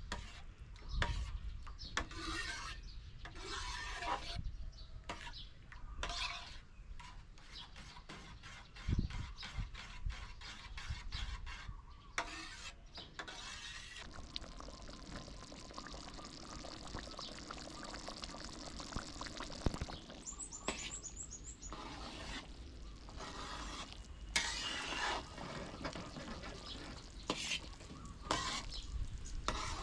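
Food-preparation sounds: a run of quick light taps and clicks, then a steady stretch of liquid pouring and stirring. About two-thirds of the way through comes a brief burst of high, rapidly repeated chirps.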